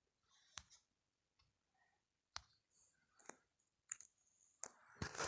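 Near silence broken by about half a dozen faint, sharp clicks spaced irregularly: fingertip taps on a smartphone touchscreen.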